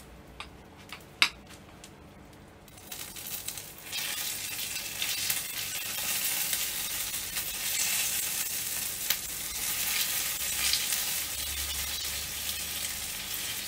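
A few light clicks, then from about three seconds in a steady sizzle: basting glaze and fat dripping off a rotisserie turkey breast onto the hot charcoal and into the drip pan of an open charcoal kettle grill, where the glaze and drippings are burning.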